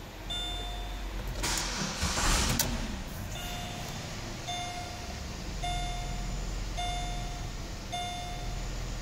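2007 Pontiac G6 GT's 3.5L V6 cranked over by the starter and catching about a second and a half in, then settling into a steady idle. Over it the dashboard's warning chime dings about once a second, pausing while the engine cranks.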